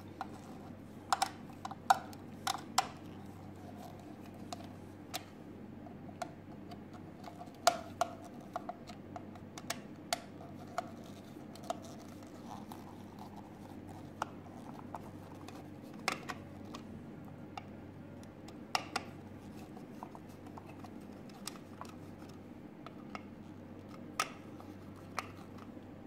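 Screwdriver turning out the screws of a plastic wall light-switch plate: irregular small clicks and scrapes of metal on the screw heads and plastic, over a faint steady hum.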